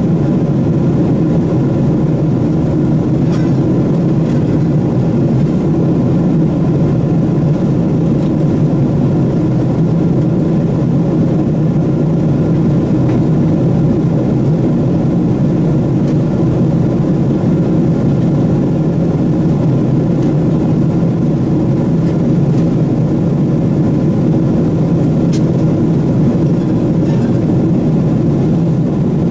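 Steady cabin noise inside a Boeing 777-300ER airliner in flight: its GE90 engines and the airflow over the fuselage heard from a window seat as an even, low drone. A faint steady tone rides on it, with a couple of faint clicks.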